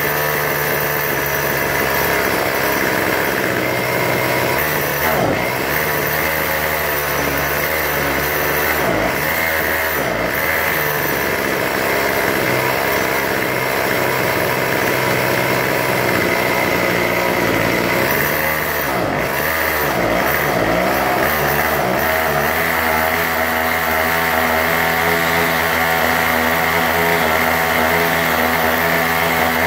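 Small gas engine of a string trimmer running, its speed dipping and picking back up several times before it holds steady near the end.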